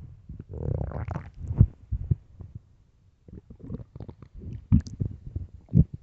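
Empty, hungry stomach growling and gurgling: a long low rumble about half a second in, then a run of short gurgles and pops through the second half, the sharpest near the end.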